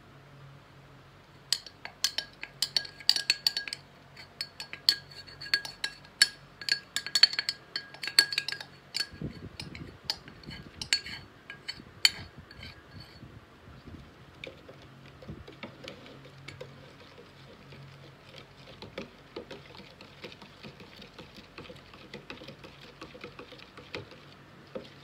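A metal spoon clinks and scrapes against a small glass beaker as powder is knocked out of it, making many quick, uneven clinks that ring at the same pitch. From about halfway the sound turns to softer, faster ticking of the spoon stirring powder into water in a plastic measuring jug.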